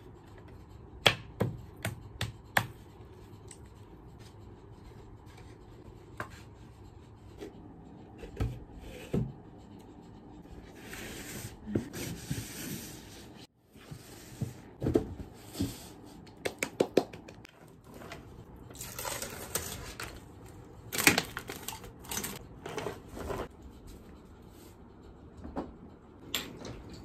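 Sharp knocks and clicks of wooden rack parts being handled and fitted together during assembly, with stretches of rustling in between and more clusters of knocks later.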